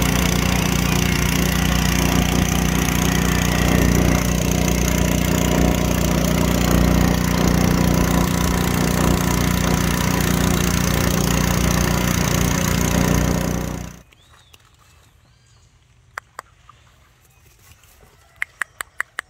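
A boat's outboard motor runs steadily and loudly, then cuts off suddenly about fourteen seconds in. After that there is a faint background with a few sharp clicks near the end.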